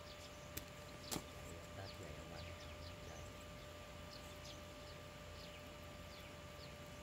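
Birds chirping faintly, short falling chirps scattered irregularly, with two sharp clicks about a second in over a faint steady hum.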